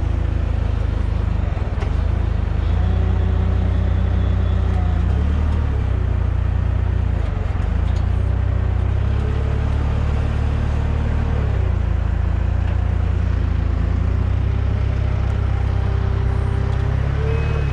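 Heavy diesel equipment engine running hard with a deep rumble, its pitch rising and falling several times as the working load changes.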